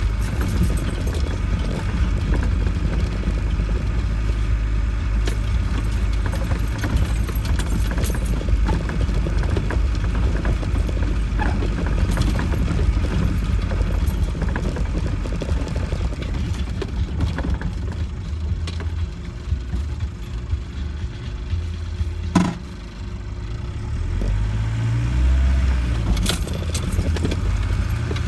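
Land Rover 90 heard from inside the cab, driving slowly over a rutted mud lane: a steady low engine and drivetrain rumble with scattered rattles and knocks as the body jolts over the ruts, one sharper knock about 22 seconds in.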